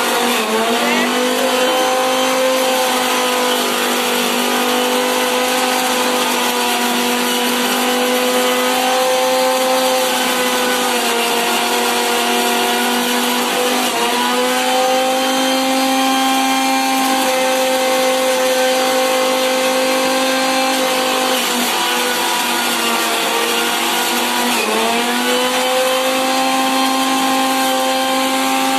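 Electric centrifugal juicer's motor running with a steady whine while juicing grapes. Its pitch sags briefly and recovers a few times as the grapes are pressed down the feed chute and load the spinning basket.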